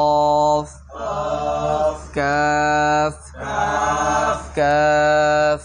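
A man chants Arabic letter names in drawn-out notes held at a level pitch, three times, with a group of voices chanting the name back together after each one: a call-and-response drill of the Arabic alphabet.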